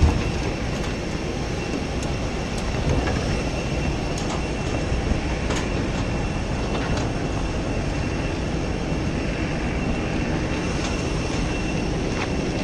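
Steady rumble of jet aircraft and ground equipment on an airport apron, with a thin high whine throughout and a few faint clicks.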